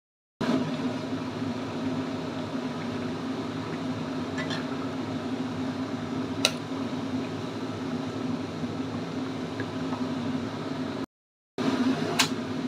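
Chicken broth simmering and bubbling in a wok on a gas burner over a steady low hum, with a few light clinks of a metal spatula against the wok. The sound drops out briefly near the end.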